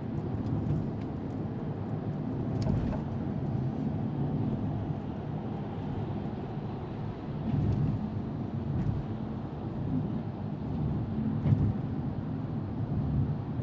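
Steady low rumble of a moving car's road and engine noise, heard inside the cabin.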